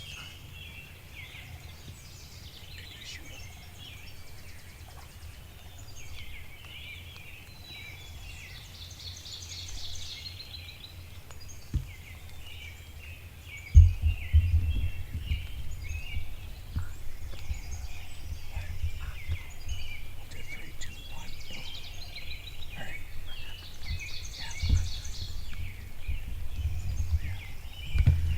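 Morning chorus of songbirds, many chirps and trills overlapping throughout. From about halfway a low rumble with a few sharp thumps rises under the birdsong.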